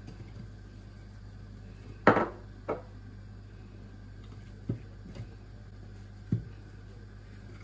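A few sharp clinks and knocks of glass spice shakers and a herb grinder being handled over a china plate, the loudest about two seconds in, over a steady low hum.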